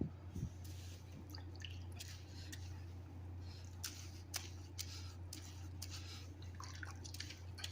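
Faint wet sounds of soaking dreadlocks being handled in water: scattered small drips and squishes over a steady low hum.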